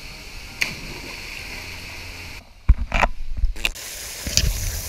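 Steady rush of water from a poolside waterfall, with a short splash about half a second in. After a brief dropout a little past halfway, loud knocks and bumps from a handheld action camera being handled.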